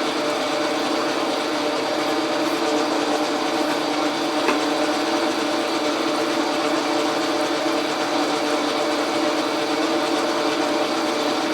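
Logan metal lathe running at a steady speed, giving an even machine hum made of several held tones.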